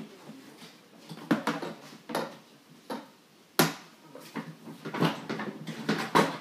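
Mop head and metal mop handle knocking against a plastic mop bucket and its wringer: a string of sharp knocks and clatters, the loudest about three and a half seconds in, coming faster near the end.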